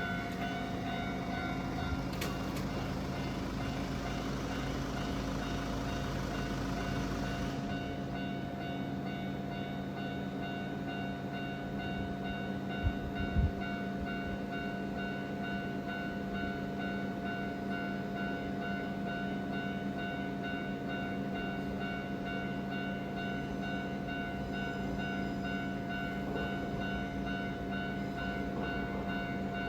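Japanese level crossing alarm ringing steadily, its electronic bell tones held without a break. A rushing noise underneath stops abruptly about seven seconds in, and there are two short knocks about halfway through.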